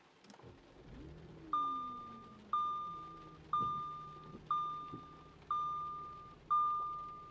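Audi A5 engine starting: the pitch flares up briefly, then settles into a steady idle. Over it a dashboard warning chime rings six times, about once a second.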